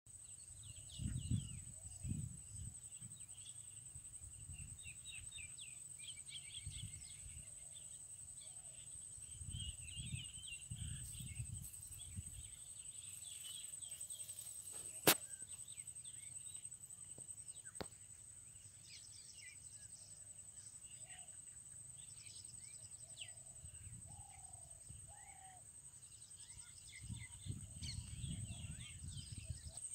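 Outdoor field ambience: small birds chirping over a steady high-pitched whine. Low rumbles come and go about a second in, around ten seconds, and near the end, and a single sharp click falls about halfway.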